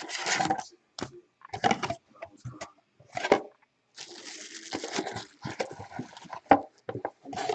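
Irregular rustling, crinkling and knocks as a sealed box of trading cards is unwrapped and opened, with a longer crinkling stretch about four seconds in.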